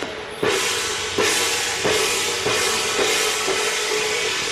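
Temple-procession percussion: large cymbals crash on a steady beat about every two-thirds of a second, each stroke with a drum beat, over a steady ringing tone.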